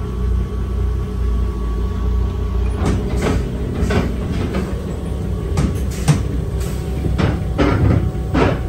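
The bus's International Red Diamond 501 engine idles with a steady low rumble. From about three seconds in, a series of clunks and rattles comes as the driver works the long floor gear lever of the 5-speed transmission.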